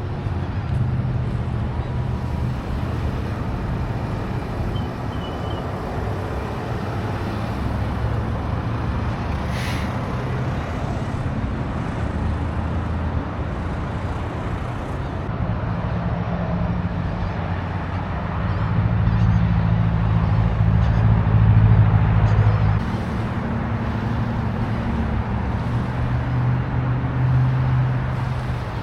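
Motor vehicle engine and road noise running steadily. The low engine hum changes pitch a few times and swells for a few seconds about two-thirds of the way through.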